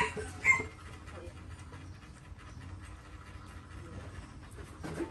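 A young monkey's soft lip-smacking and breathy panting as it grooms a person's eyebrow, heard as faint quick clicks. A brief loud call sounds in the first half second.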